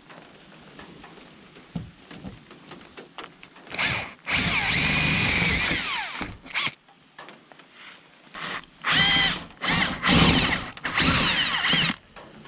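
Power drill running a 1/4-inch bit through the sheet-metal hood of a truck, opening up 1/8-inch pilot holes. There is one steady run about four seconds in whose whine drops as it winds down, then several short bursts in the last few seconds with the motor whining up and down.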